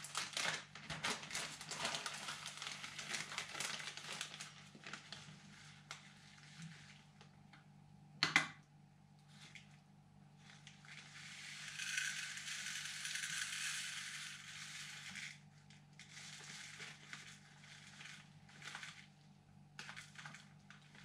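Small plastic bag crinkling as it is opened and handled, then dried spice trickling out of the bag into a plastic cup on a kitchen scale for a few seconds, with a single sharp tap a little after eight seconds in.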